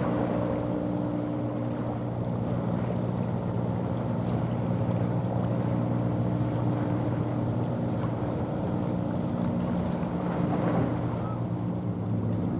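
A ship's engine droning steadily, a low hum with several held tones, with wind on the microphone.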